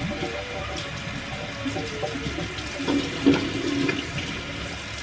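Steady rush of running water in a small tiled room.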